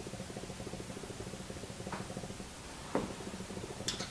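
Faint metal clicks of a screwdriver working a screw in a rolling block rifle action, the sharpest about three seconds in, over a steady low hum.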